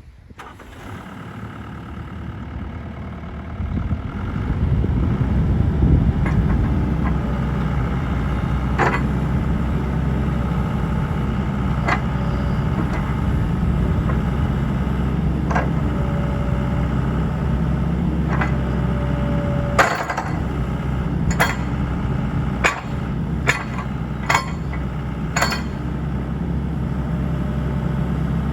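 The 54 hp Isuzu diesel of a Sany SY75C excavator running steadily, growing louder over the first four seconds. Sharp knocks or clanks sound now and then, several in quick succession near the end.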